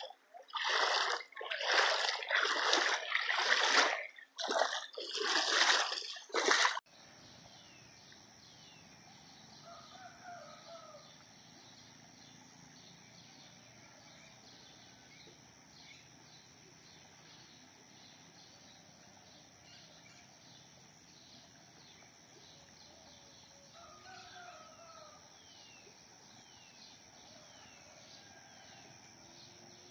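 Loud, rough surges of noise for about the first seven seconds, then a sudden drop to quiet outdoor ambience. A rooster crows faintly twice, about ten seconds in and again later, over a steady high whine and faint chirping.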